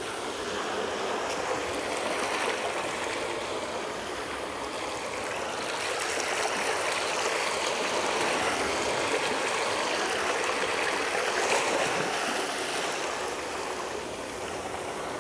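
Recording of ocean waves played back over loudspeakers: a steady wash of surf rising and falling in slow swells. Its spatial part has been synthesized with diffusion filters and modulation, which brings audible filtering effects when heard in stereo.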